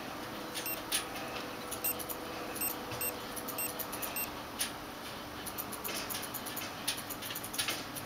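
Tamagotchi Ocean virtual pet giving a few short electronic beeps from its tiny speaker in the first half, while its plastic buttons are clicked. More button clicks follow in the second half, over a faint steady hum.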